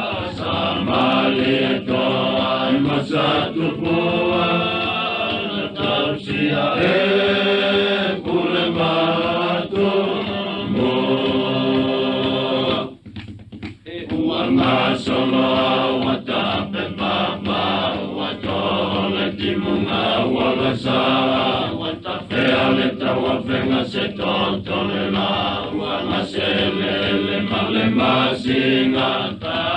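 A group of voices singing a traditional Samoan song in a chant-like style, with a brief pause near the middle.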